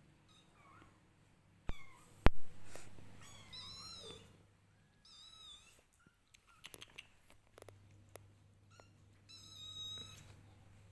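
One-month-old kitten mewing repeatedly in high-pitched calls. A sharp knock about two seconds in, and a few light clicks later on.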